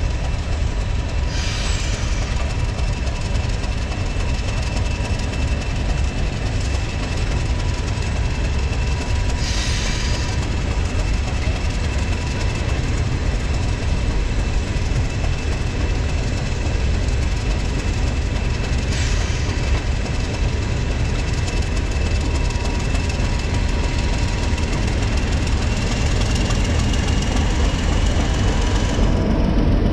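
Class 31 diesel locomotive running as it moves off: a steady low engine rumble with a steady whine that rises slightly near the end. Three short hisses come at intervals of about eight to nine seconds.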